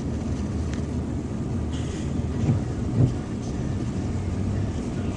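Semi-truck's engine running and its tyres throwing up spray as it drives through slushy floodwater and passes close by, with a louder swell about three seconds in.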